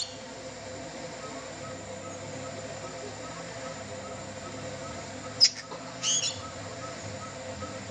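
A band-backed wren gives one short, harsh call about six seconds in, with a single sharp click just before it. Underneath is a steady low hum and a faint pip repeating about three times a second.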